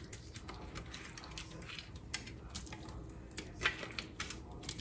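Soft, scattered clicks and taps as raw shrimp are placed by hand into a pot of simmering stew, over the faint sound of the broth.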